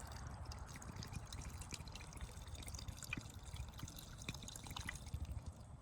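Faint dripping and trickling of water in a container of staghorn sumac berries just steeped in cold water, with scattered small drips over a low steady background hum.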